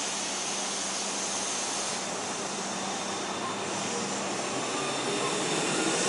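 Semboku Rapid Railway electric train moving slowly along a station platform: a steady run of wheel and motor noise. Over the last second a thin whine climbs in pitch and the sound grows louder.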